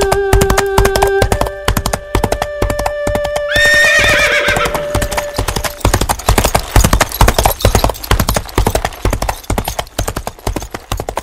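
Horse hooves clip-clopping in a quick, even rhythm and a horse whinnying about three and a half seconds in. Over the first half an erhu holds long final notes, which stop about six seconds in.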